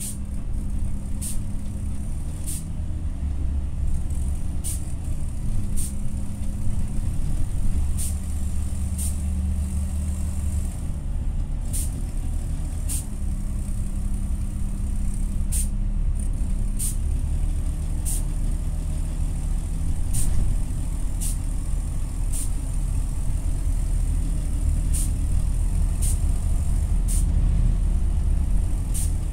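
TCV Karat city bus engine running under way, heard from inside the cabin, its low drone stepping up and down in pitch several times; the uploader calls its sound extremely faulty. Sharp clicks or rattles come through at irregular intervals of about a second.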